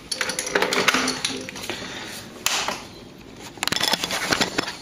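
Clicks and clatter of a stopped stand mixer being handled: its head tilted up and the dough hook knocking against the steel bowl, in several short clusters.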